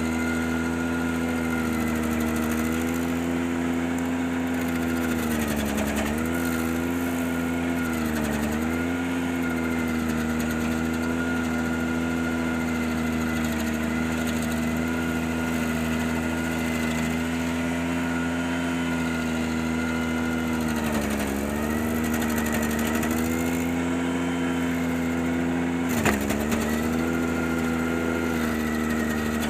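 Ventrac 4520Z compact tractor's engine running at high throttle, driving the KC180 stump grinder attachment. Its pitch sags briefly several times as the cutter wheel bites into the stump and loads the engine, with a sharp knock near the end.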